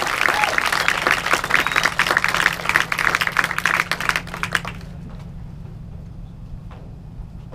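Crowd applauding, the clapping dying away about five seconds in and leaving a quiet low steady hum.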